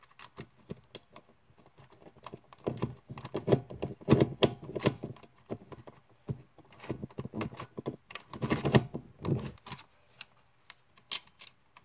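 Sharp plastic clicks and rattles from a Gear Cube puzzle being handled while its center screw is put back in, coming in irregular flurries.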